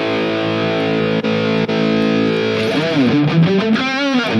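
Distorted high-gain electric guitar played through the NUX MG-30 modeler's patch (Steel Singer drive into the VH4 amp model and a Marshall 1960 cabinet). Held chords ring out, then a lead phrase with bends and wide vibrato comes in about three seconds in.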